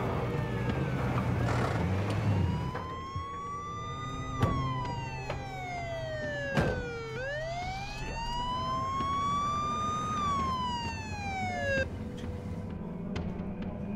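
Police car siren wailing in slow rises and falls, each sweep lasting about three seconds, over a car engine running low underneath at first. Two sharp knocks come in the middle, and the siren cuts off suddenly near the end.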